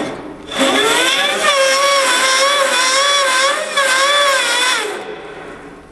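17-inch bandsaw coming up to speed with a rising whine, running with a wavering whine, then fading away near the end as it winds down.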